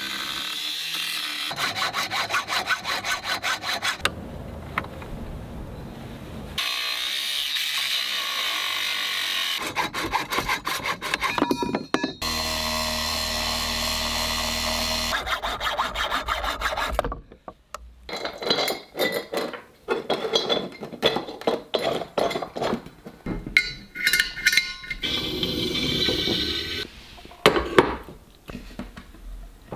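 Ryobi angle grinder with a cut-off disc cutting through aluminium extrusion and a metal rod, in several short takes of steady cutting noise. Near the end come irregular clicks and knocks of metal parts being handled and fitted.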